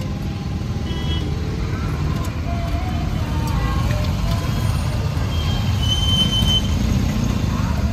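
KTM motorcycle engine running with its silencer opened up: a loud, steady low exhaust rumble that builds slightly. Faint voices and a brief high tone about six seconds in.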